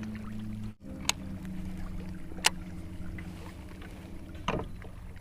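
Boat motor running steadily with a low hum, broken by a few sharp clicks.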